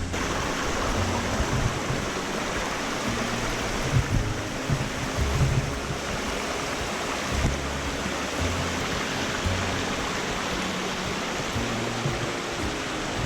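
Small monsoon stream (a nala) rushing and splashing as a small waterfall, a steady wash of water noise. Background music with low bass notes runs underneath.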